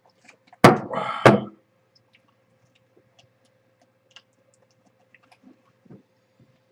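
Two loud thumps about a second in, two thirds of a second apart, with a short rough rustle between them, then only faint scattered clicks and knocks.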